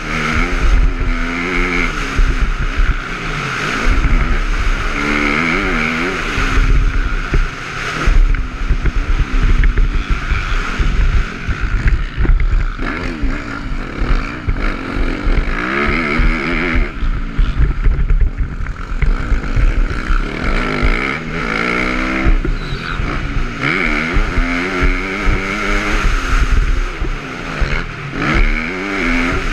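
Dirt-bike engine heard from the rider's own on-board camera, revving up and easing off over and over as the bike accelerates and slows through the track. Wind noise and short knocks from the rough ground run along with it.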